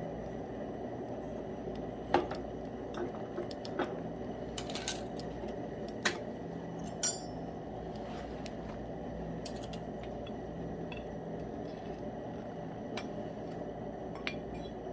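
Metal tools clinking and tapping against the crucible and bar mould during a metal pour: scattered sharp clinks, the loudest about two and seven seconds in, over a steady low hum.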